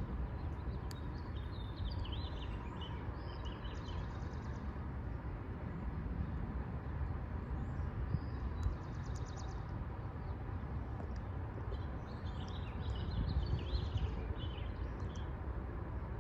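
Light wind buffeting the microphone in a low, steady rumble, with birds chirping in two spells, in the first few seconds and again a few seconds before the end.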